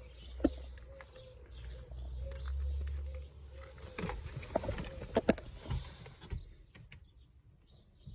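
Sharp clicks and light knocks of hands working around the car's interior, one about half a second in and a handful between about four and six and a half seconds in, over a low rumble.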